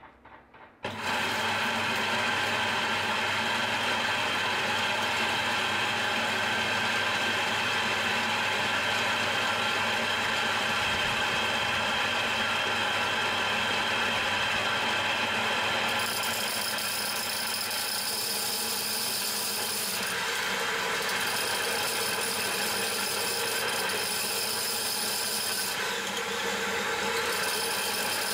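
Small electric grain mill with a hopper, used to grind soaked rice, switched on about a second in and then running steadily with a motor whine; the sound turns brighter about halfway through.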